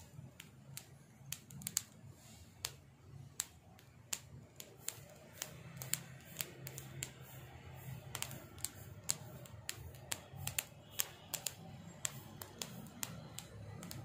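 Irregular sharp clicks, a few a second, of a kitten's claws picking and snagging at a woven straw mat, over a low steady hum.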